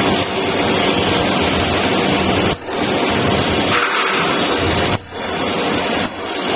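Electric welding arc burning on steel plate: a steady, loud hiss that drops out briefly three times, about two and a half, five and six seconds in.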